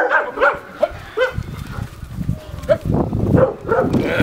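Dog barking in short, sharp barks, several in quick succession at first and then a few more spaced out, over a low rumble.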